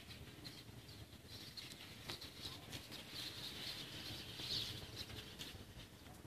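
Faint high chirping of small birds over a low rumble, with a few short sharp clicks.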